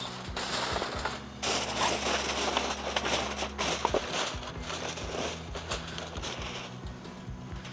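Heavy-duty aluminium foil crinkling and crackling as it is pressed down and crimped around the rim of a foil pan, the crackle thickening about a second and a half in.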